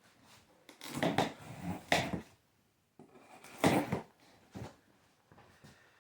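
Packaging being handled during an unboxing: short bursts of rustling and light knocks as packing material and cardboard are moved. The bursts come about a second in, around two seconds, and again near four seconds.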